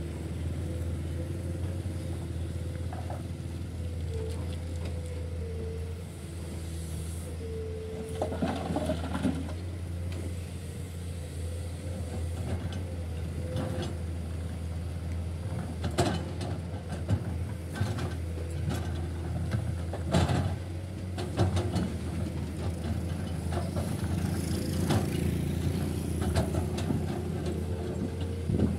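Komatsu hydraulic excavator running steadily, its diesel hum under a hydraulic whine that sags in pitch now and then as the arm and bucket take load. Several sharp knocks and scrapes come in the second half as the bucket digs stony soil.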